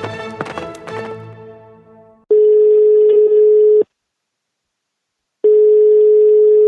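Music fading out, then a telephone ringback tone: a steady single tone sounding twice, each about a second and a half long, the sound a caller hears while the other phone rings.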